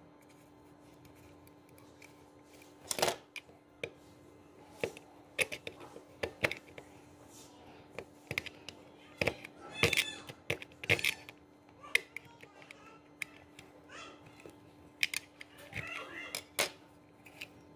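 A screwdriver tip clicking and scraping against the plastic battery compartment and metal battery contacts of a Fühlen wireless mouse as they are pried loose. Irregular sharp clicks, a few much louder than the rest, over a faint steady hum.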